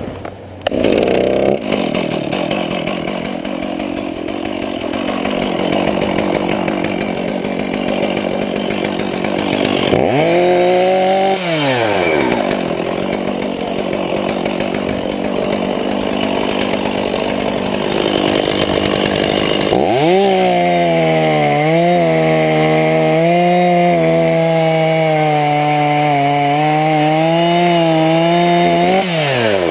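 Chainsaw engine running loud throughout. It revs up briefly about ten seconds in. From about twenty seconds it holds a high, slightly wavering rev, then falls away near the end.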